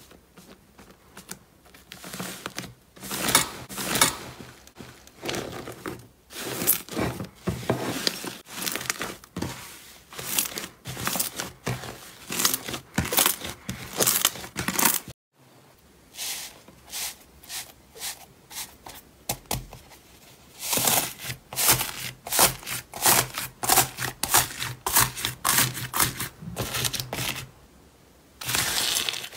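Hands squeezing, pressing and stretching slime, giving quick irregular sticky clicks, pops and crinkling. There is a brief break about halfway through.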